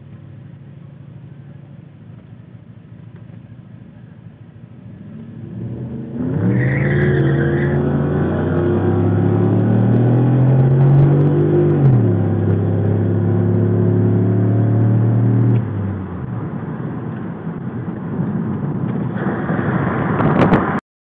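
Engine of a 2005 Pontiac Grand Prix GXP, a 5.3 L LS4 V8, heard from inside the cabin. It idles at the start line, then launches at full throttle about six seconds in, the revs climbing and dropping at an upshift around twelve seconds. About fifteen seconds in the driver lifts off and the car coasts, and the sound cuts off abruptly near the end.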